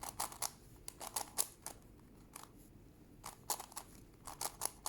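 Megaminx puzzle being twisted quickly: sharp plastic clicks of its faces turning, in irregular flurries of several a second.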